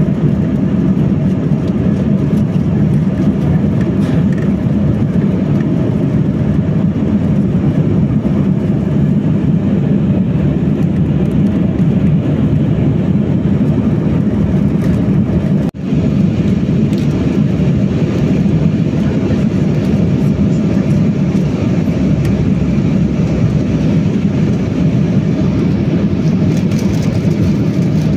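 Steady, even cabin drone of an Embraer E195-E2 airliner in flight, heard from a window seat beside the wing: airflow and its Pratt & Whitney PW1900G geared turbofan engines. It breaks off for an instant about halfway through.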